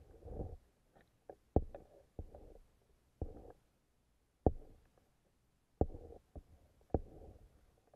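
Irregular muffled knocks underwater, about one a second, each followed by a brief low gurgling rumble, as picked up by a camera in a waterproof housing.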